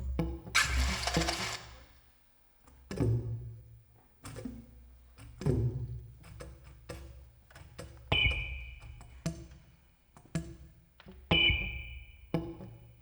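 Sparse free-improvised experimental music: scattered knocks and clicks with gaps between them, a short burst of hiss just after the start, and two brief high held tones, one at about 8 seconds and one at about 11 seconds.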